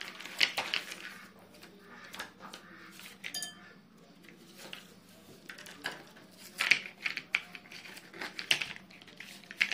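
A white bowl of water being handled, with small capsules dropped into it: a series of sharp clinks and knocks at irregular intervals, the loudest in the second half.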